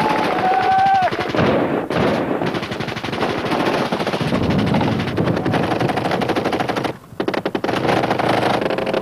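Rapid automatic gunfire: a belt-fed machine gun and automatic rifles firing long, dense bursts, with a short break about seven seconds in. A brief high-pitched tone sounds in the first second.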